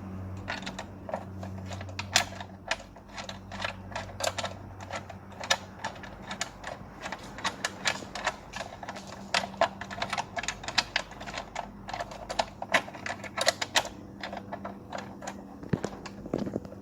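Rapid, irregular clicking and tapping of hand work on engine-bay parts, a few clicks a second, over a steady low hum.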